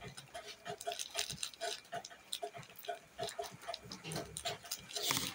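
Short animal calls repeated quickly, about four a second, with a brief louder noise near the end.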